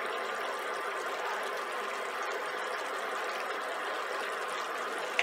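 Curry sauce simmering in a stainless steel pan on a portable gas burner: a steady bubbling hiss.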